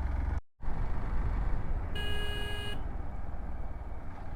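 Hero XPulse 200 motorcycle's single-cylinder engine running steadily on the ride, with wind and road noise, the sound cutting out briefly just under a second in. About two seconds in, a short horn beep lasting under a second.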